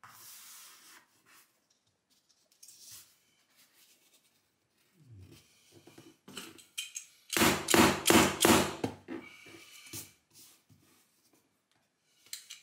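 A quick run of loud thumps, about six in two and a half seconds, comes after fainter scraping and taps, with one more knock at the very end.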